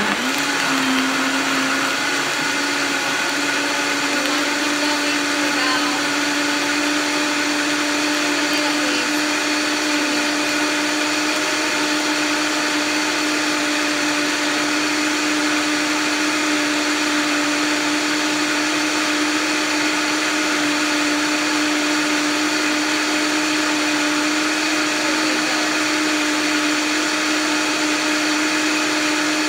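Vitamix high-powered blender running at high speed, blending soaked almonds, dates and water into almond milk. It gives a loud, steady whine whose pitch rises slightly in the first second, then holds.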